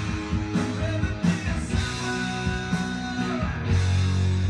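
Music with guitar and a strong bass, played from a vinyl record on a turntable with a Nagaoka MP-110 cartridge.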